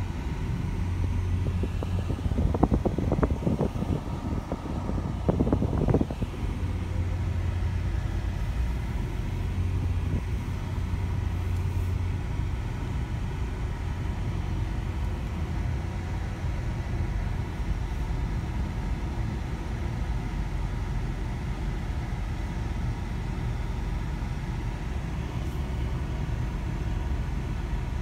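Engine and road noise heard inside a moving car's cabin: a steady low hum, with a few short knocks and rattles between about two and six seconds in.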